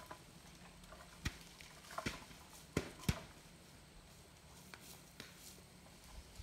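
Scattered sharp knocks as an apple tree is shaken with a long picking pole and the apples come down: four louder knocks close together starting about a second in, then a couple of lighter ones.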